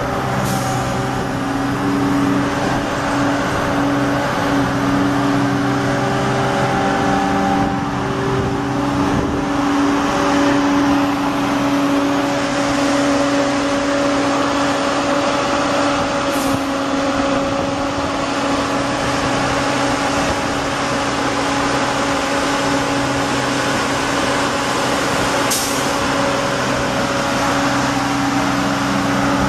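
Gradall G660E's Cummins six-cylinder diesel engine running steadily at a constant speed, with three brief sharp clicks along the way.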